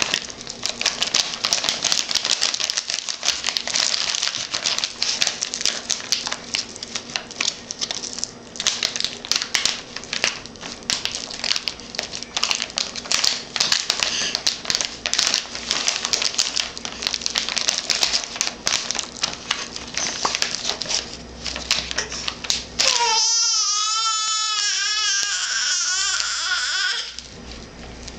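Plastic soup-mix pouches crinkling and crackling as a baby grabs and pulls at them. About 23 seconds in, the baby's voice comes in for one long wavering cry that lasts about four seconds, louder than the crinkling.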